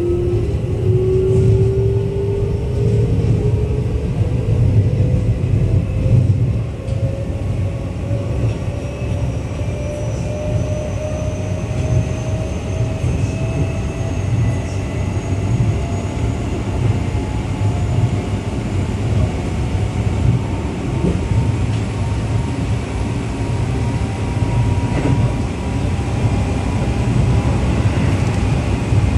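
Keio 8000 series electric train heard from inside the car: a Hitachi GTO-VVVF inverter and traction-motor whine climbing slowly in pitch as the train gains speed, over a steady rumble of wheels on rail. The loudest tone fades out about five seconds in, while fainter ones keep rising.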